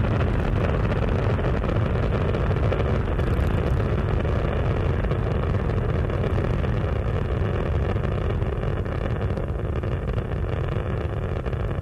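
Space Shuttle Endeavour's twin solid rocket boosters and three main engines burning during ascent, heard from the ground as a steady, dense rumble that is heaviest in the low end.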